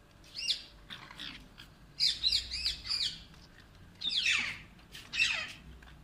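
Alexandrine parakeets calling in short, shrill screeches: a quick run of several calls about two to three seconds in, and a longer call falling in pitch just after four seconds.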